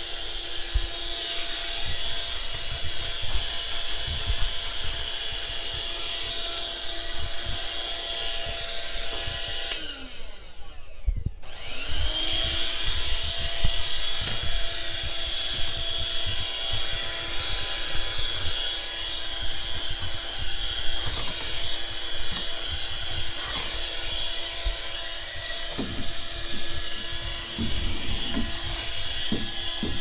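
Canister vacuum cleaner running steadily with a high whine while vacuuming a tatami floor. About ten seconds in, its motor briefly winds down and then spins back up to full speed. Low knocks of the nozzle and body being moved come and go.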